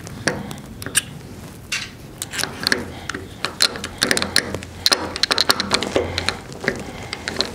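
Small brass fittings being handled and a brass retaining nut being screwed by hand onto the back of a MIG torch: a run of irregular light metal clicks and taps.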